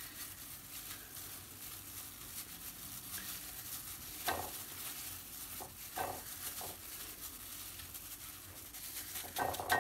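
Plastic-gloved hand coating a marinated chicken wing in dry flour: soft rustling with a few light pats, over a faint steady hiss.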